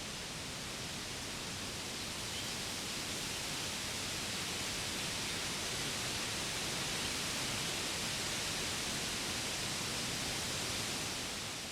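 Wind blowing through forest trees: a steady rushing hiss that swells slightly a few seconds in.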